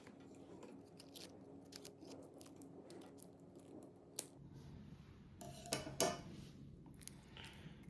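Scissors snipping and handling faint, irregular clicks as foil shielding and wire are trimmed away from a multi-wire NMEA 2000 cable, with a couple of sharper snips about four and six seconds in.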